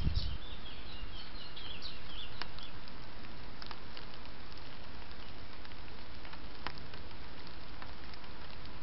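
Steady hiss from a trail camera's microphone, with small birds twittering faintly for the first two to three seconds. After that only a few faint ticks sound through the hiss.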